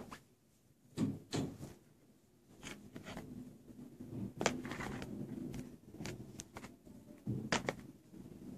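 Handling noise: light rustling with a few soft knocks and clicks as cloths and a sock are arranged in a cardboard box.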